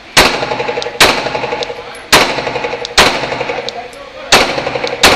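Six 9mm shots from a Glock 17 pistol, fired roughly in pairs about a second apart, each followed by a ringing echo off the walls of an indoor range.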